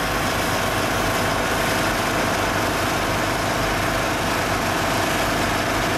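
Fire engine's motor running steadily close by: a loud, even drone with a constant hum.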